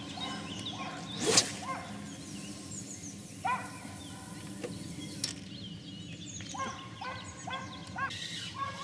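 A long feeder rod cast with a loaded bait feeder: a sharp swish of the rod about a second in, then fishing line hissing off the spinning reel's spool for about four seconds, stopping abruptly. Birds chirp and call repeatedly throughout.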